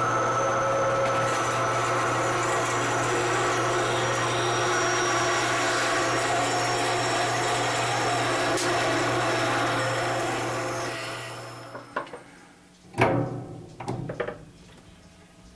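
Horizontal metal-cutting bandsaw running steadily as its blade cuts through a small metal rod, then switching off about ten seconds in and winding down over a second or two. A few light knocks and clicks follow as the cut pieces are handled.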